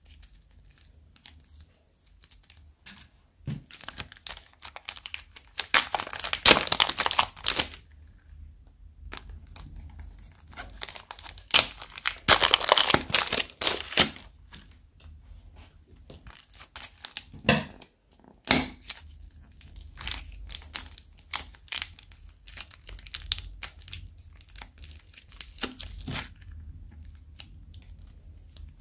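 Plastic bags crinkling and tearing as slime and clay are handled out of them, in two loud spells of dense crinkling a few seconds apart, with scattered short crackles and clicks between.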